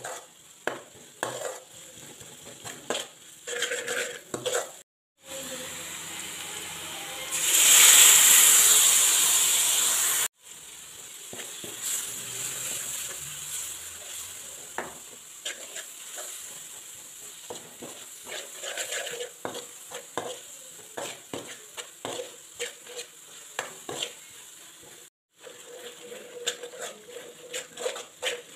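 Onions, then a masala paste, frying in oil in a steel pan, sizzling, while a spoon stirs and scrapes the pan in quick strokes. About seven seconds in there is a much louder burst of sizzling lasting about three seconds. The sound breaks off abruptly a few times.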